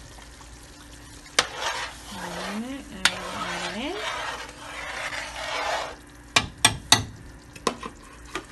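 A spoon stirring a pot of steaming tomato sauce, scraping and swishing through it, with sharp knocks of the spoon against the pot: one about a second in, another at three seconds, and a quick run of knocks in the last two seconds.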